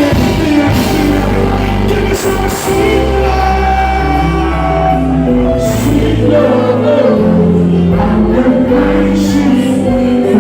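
Live dancehall-reggae music with singing over a strong bass line.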